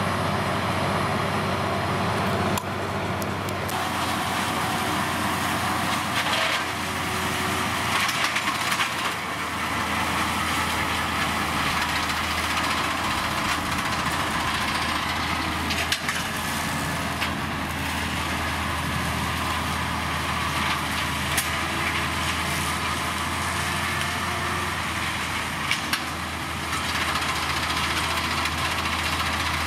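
Deutz-Fahr tractor engine running steadily under load while driving a front and rear mower combination through grass, with a constant low hum. A few short sharp cracks come through now and then.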